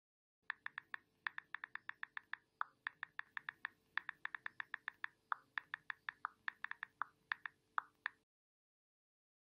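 Smartphone keyboard clicks as a message is typed: a quick, irregular run of small taps, about five a second, that stops shortly before the end.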